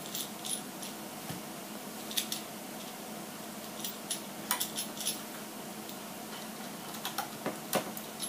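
Small parts and tools of an RC truck kit clicking and tapping against each other as pieces are fitted and lined up: a dozen or so scattered light clicks over a faint steady hum.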